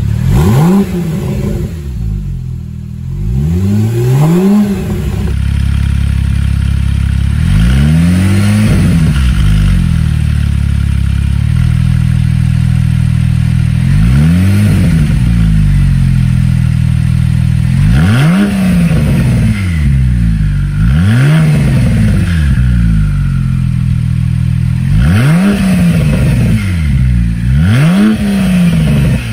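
Porsche 911 Turbo (991.1) twin-turbo flat-six free-revving at standstill through an aftermarket Soul Performance exhaust: a series of short throttle blips, the engine note rising and dropping back each time. For the first few seconds it runs through the Soul X-Pipe with the factory catalytic converters, then through the complete setup with the Soul Sport Cats added.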